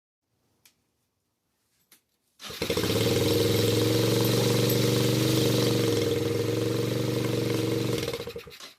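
Small single-cylinder engine of a Kawasaki KFX90 youth ATV running at a steady speed. It starts suddenly about two and a half seconds in and dies away near the end, after two faint ticks.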